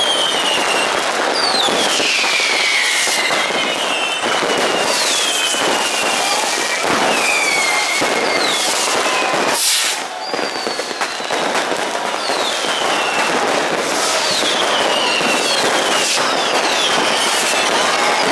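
Dense New Year's Eve fireworks and firecrackers going off all around: continuous crackling and bangs, with many overlapping whistles that fall in pitch, and one especially sharp bang about halfway through.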